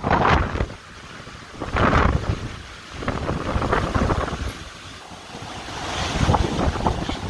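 Hurricane wind gusting hard and buffeting the microphone, swelling and easing every couple of seconds over a steady rushing noise.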